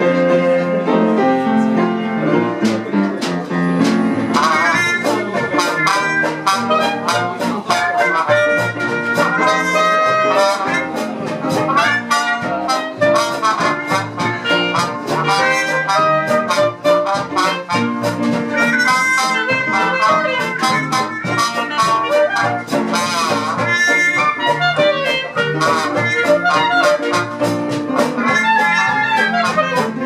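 A live traditional jazz band plays: clarinet, trumpet and trombone carry the melody together over a steady beat from string bass and drums. The horns come in strongly about four seconds in.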